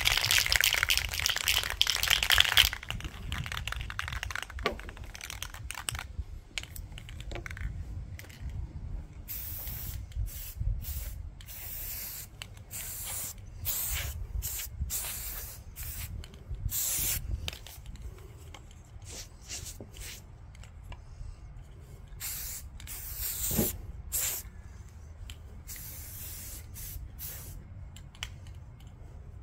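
An aerosol spray paint can is shaken hard for the first few seconds, its mixing ball rattling inside. Then paint is sprayed in many short hissing bursts with brief pauses between them.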